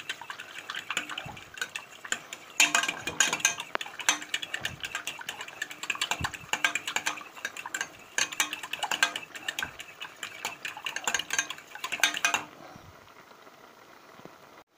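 Metal spoon stirring fast in a stainless steel saucepan of thick sauce, scraping and clinking against the pot's bottom and sides in quick strokes. The stirring stops about two seconds before the end.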